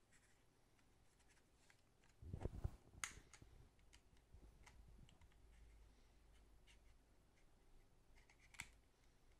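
Quiet handling noise: scattered faint clicks, a soft thump about two and a half seconds in, a sharp click just after it and another click near the end, as small items are handled and fiddled with.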